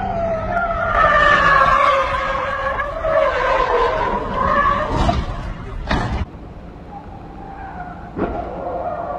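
Car tyres squealing as a car slides sideways: a long, wavering screech that lasts about five seconds, then two sharp knocks. A fainter tyre squeal comes near the end.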